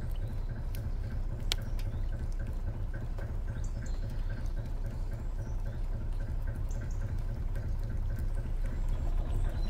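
Narrowboat's engine running at low revs, a steady low rumble with a faint regular tick about three times a second, along with scattered drips of rain.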